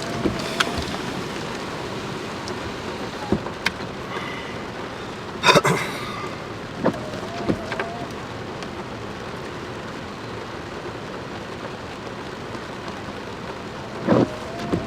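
Heavy rain falling steadily, with sharp knocks of water striking nearby surfaces, loudest about halfway through. A short wavering tone recurs about every seven seconds.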